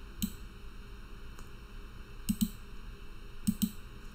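Computer mouse clicking: a single click, then two quick pairs of clicks, one near the middle and one near the end.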